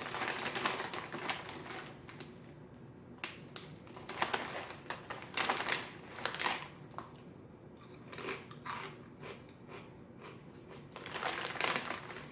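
Potato chips being chewed close up: a run of irregular, crisp crunches.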